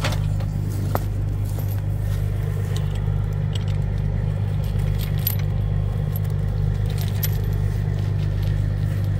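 Steel recovery chain clinking and rattling in short, scattered clicks as it is handled and pulled through, over the steady low hum of an engine running.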